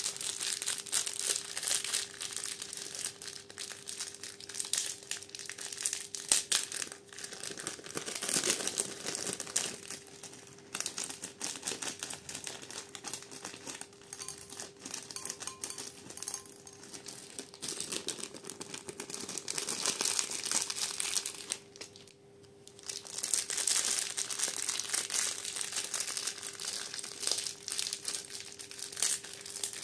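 Small plastic bags of craft beads crinkling as they are squeezed and opened, with beads clicking as they are shaken out onto slime. A short lull a little past the middle, and a faint steady hum underneath.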